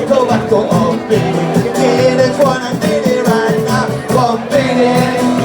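A song performed live with a singing voice over instrumental accompaniment, the melody wavering over steady held notes.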